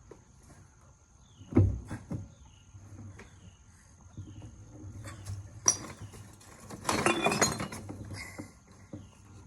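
Metal hand tools clinking and clattering together, as when sockets are rummaged through. A single knock comes about one and a half seconds in, and a second-long burst of clinking about seven seconds in.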